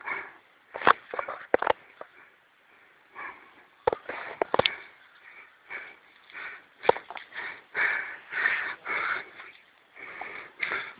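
A person breathing hard in short, noisy breaths, as from exertion, with a few sharp knocks and clicks in between.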